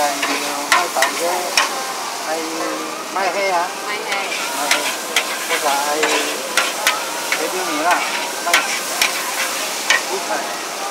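Char kuey teow noodles stir-frying in a hot wok: a steady sizzle, with the spatula clanking and scraping against the wok many times at an irregular pace.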